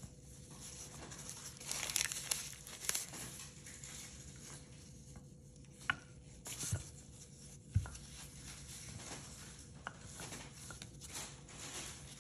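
Paper chopstick wrapper crinkling and tearing as disposable chopsticks are unwrapped, with a few light knocks a few seconds later.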